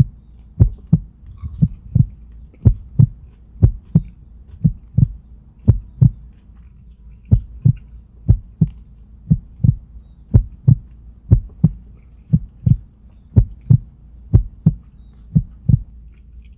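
Loud low thumps coming in pairs, about one pair a second, like a heartbeat, over a low steady hum.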